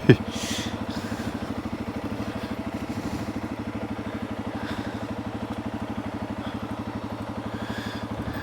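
Honda CRF300 Rally's single-cylinder engine running at low, steady revs, with an even, rapid beat. A brief sharp knock sounds right at the start.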